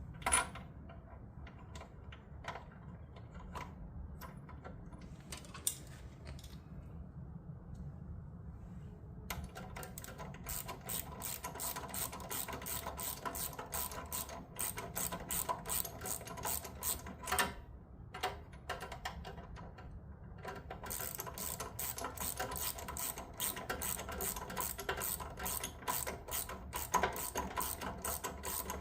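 Hand ratchet wrench being worked in two long runs of rapid clicking, with a few separate clicks and knocks before them.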